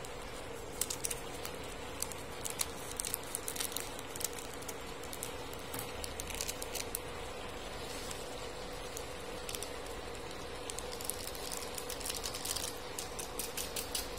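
Instant noodles boiling in a nonstick frying pan over a steady hum, with bursts of crinkling and crackling as foil seasoning sachets are torn open and emptied, starting about a second in and again toward the end.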